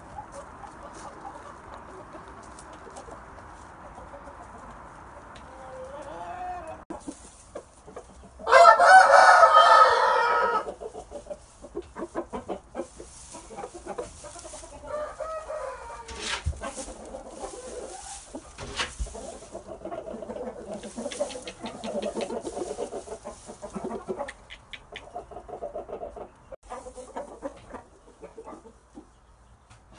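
Shamo game rooster crowing once, a loud call of about two seconds roughly a third of the way in, followed by quieter clucking calls.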